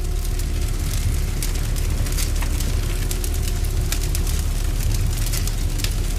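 Fire sound effect: flames burning with a steady low rumble and many sharp crackles.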